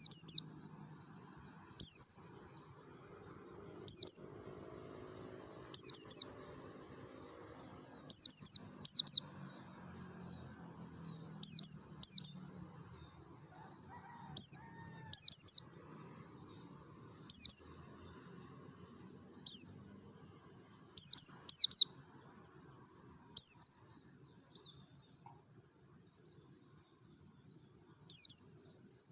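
Pleci (white-eye) calling in its loud ngalas style: short, very high, quick-falling chirps in groups of two or three, repeated about every two seconds, with a longer pause near the end.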